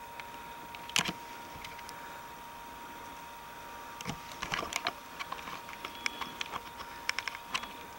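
Scattered small clicks and rustles of the camera being handled close to the microphone, thickest about four to five seconds in as it is moved, over a faint steady high whine.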